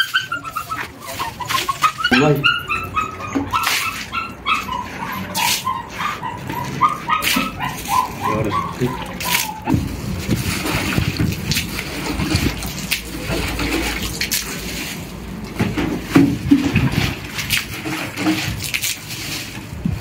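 A dog whining: a long run of short, high whimpers that rise and fall in pitch, lasting about half the time. After that, water splashes and sloshes as it is scooped by hand from a plastic bucket onto a concrete floor.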